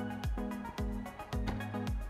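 Background music with a steady beat, about two drum hits a second over held bass notes.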